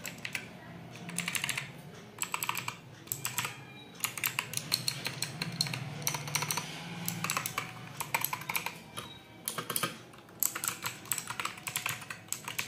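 Typing on a Portronics Hydra 10 mechanical keyboard with clicky blue switches: rapid runs of high-pitched keystroke clicks, broken by short pauses.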